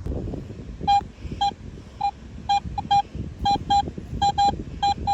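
Metal detector beeping: short tones all at one pitch, about a dozen in irregular runs starting about a second in, over low wind rumble on the microphone.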